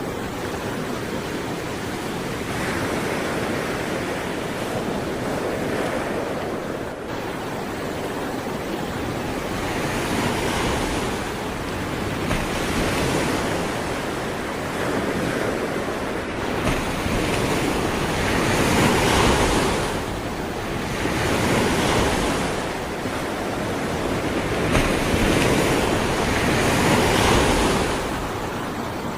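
Sea waves breaking and washing on the shore, a continuous surf noise that swells and eases every few seconds, with some wind on the microphone.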